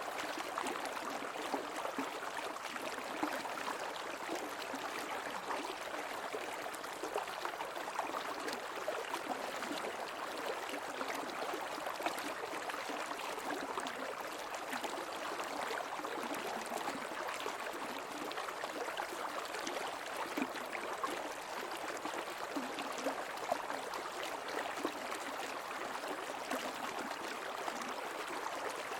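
Shallow creek water running and gurgling steadily over stones.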